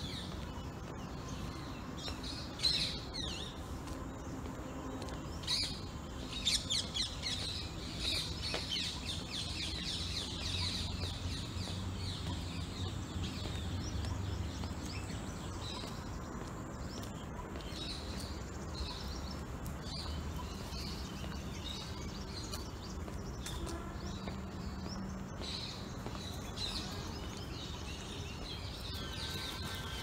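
Small birds chirping and twittering, with quick runs of rapid chirps in the first half, over a low rumble.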